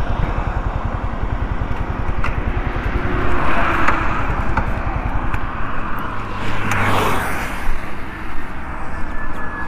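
Yamaha MT-15's single-cylinder engine running as the motorcycle slows to a stop at the roadside and ticks over, a steady low pulsing rumble. Two louder rushing swells come about a third of the way in and again around two-thirds through.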